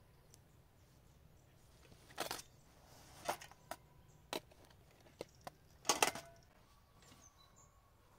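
Camping gear being packed by hand into a burlap sack: a series of short rustles and clunks as items such as tins and a metal food container go in, the loudest about two-thirds of the way through.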